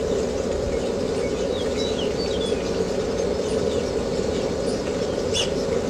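Steady mechanical droning noise with a low rumble, and a few faint high bird chirps over it.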